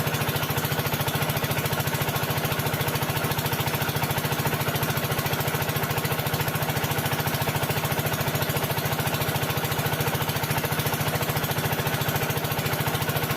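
A machine running steadily with a rapid, even pulsing that does not change.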